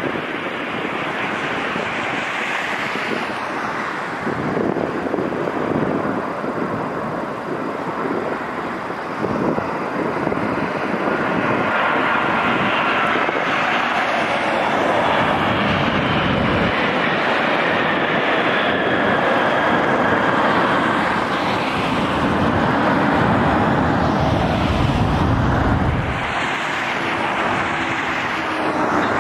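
Boeing 737-900 jet engines during a landing: steady jet noise on approach with a faint falling whine around touchdown, then the engine noise growing louder and deeper after touchdown before easing near the end.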